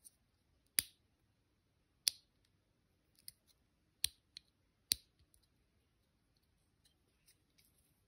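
Square rocker switch with a white cap being pressed, snapping with sharp mechanical clicks. There are four loud clicks at uneven intervals of one to two seconds, with several fainter ticks between them.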